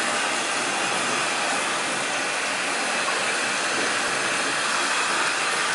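Water running from the tap into a bathtub as it fills, a steady rushing hiss.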